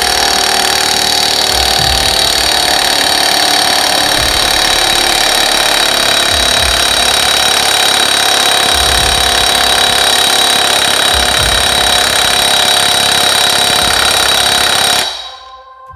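Milwaukee 2767 M18 cordless impact wrench hammering continuously at full power, driving an exhaust pipe stretcher in stainless steel pipe, then stopping abruptly about fifteen seconds in. The stretcher creeps a little further and then stalls: the stainless steel is resisting the expansion.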